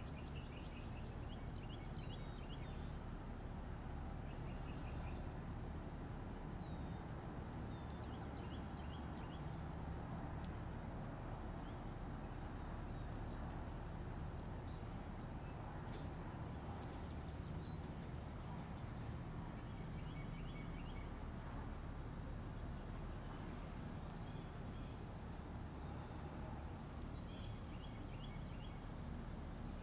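A steady, high-pitched chorus of insects, with brief chirping trills every several seconds.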